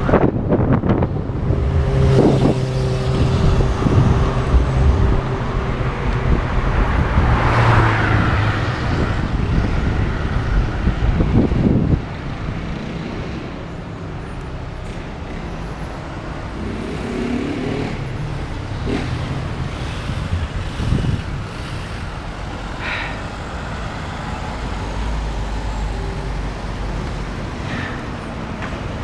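Street traffic: motor vehicles running close by, with a steady engine hum that is loudest for the first twelve seconds, then drops suddenly to a lower traffic rumble.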